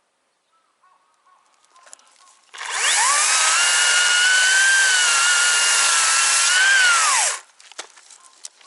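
Chainsaw cutting wood: it speeds up about two and a half seconds in, holds a high, steady whine through a cut of about five seconds, then winds down and stops.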